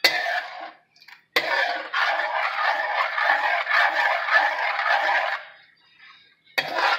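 Metal ladle stirring and scraping gandules in sofrito around an aluminium pot on high heat. A sharp clink at the start, then about four seconds of continuous scraping in even strokes, and a short scrape near the end.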